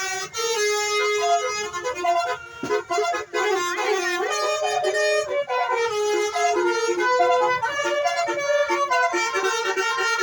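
Basuri telolet horn, a multi-trumpet musical vehicle air horn, playing a tune of held notes that step up and down in pitch, several tones sounding together.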